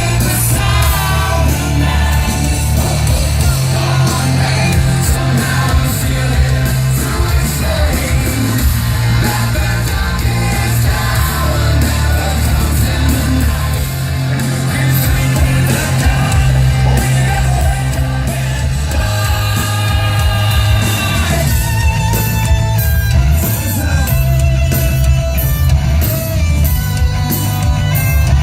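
Hard rock band playing live at full volume: a singer over heavy bass, guitar and pounding drums.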